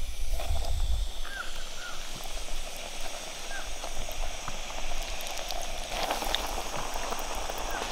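Chunks of fish fillet deep-frying in hot oil in a small Jetboil camp stove pot: a steady sizzle and crackle. A few faint chirps sound in the first few seconds.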